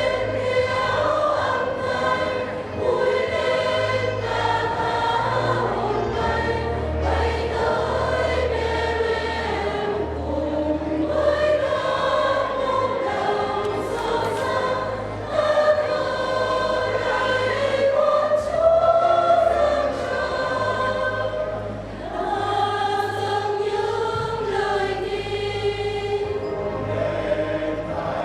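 Church choir singing a Vietnamese Christmas carol in several voices, over a steady low accompaniment whose bass notes change every few seconds.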